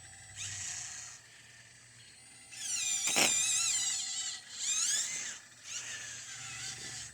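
Hydraulic pump of an RC excavator whining in several bursts as its controls are worked, the pitch wavering up and down under changing load; the longest, loudest burst comes about halfway through.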